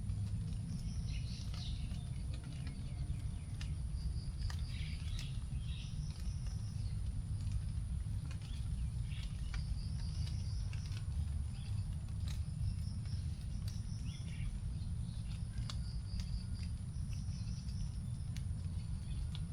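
Leftover raindrops dripping onto leaves as scattered sharp taps, with birds chirping in short repeated phrases and a steady high-pitched insect drone, over a low background rumble.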